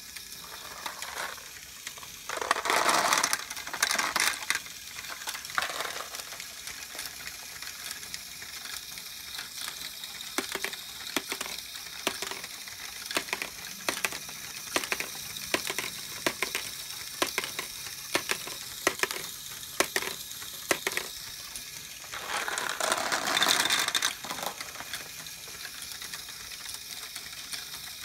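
LEGO Technic ball-handling machine running: plastic gears and arms clattering steadily, with frequent sharp clicks of small plastic balls being picked up and dropped. There are two louder rattling stretches, a couple of seconds in and near the end.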